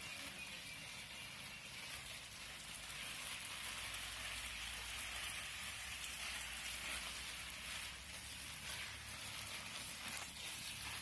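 Stream of watering water splashing steadily through leaves and onto soil and leaf mulch, a continuous rain-like patter.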